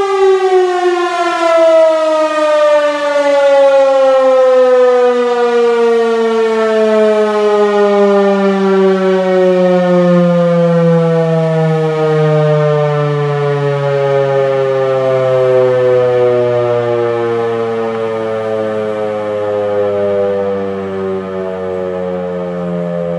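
Federal Signal 508-128 dual-tone siren winding down, its two tones falling steadily in pitch and slowly fading: the rotor coasting after the motor has shut off, ending a short alert.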